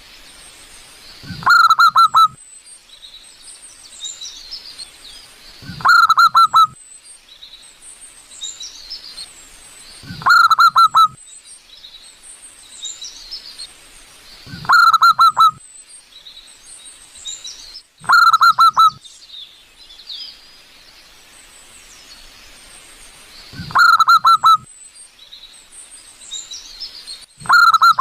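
Zebra dove (perkutut) calling: a short burst of rapid staccato coos, repeated about every four seconds, seven times. Fainter, higher chirps of smaller birds run between the calls.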